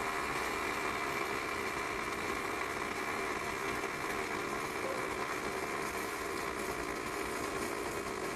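Pulsed MIG (GMAW-P) welding arc burning steadily with a dense, even crackle.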